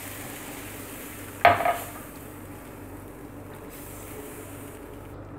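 Silicone spatula stirring milk into a sizzling flour-and-oil roux in a frying pan, with a steady hiss that fades near the end. One sharp clink about a second and a half in.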